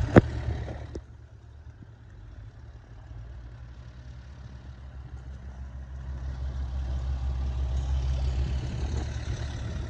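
An engine idling with a steady low hum, growing louder over the second half, and a sharp knock just after the start.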